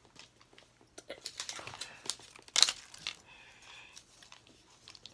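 Plastic wrap being torn and peeled off a Mini Brands capsule ball, crinkling and crackling in a run of quick rips, the loudest about two and a half seconds in.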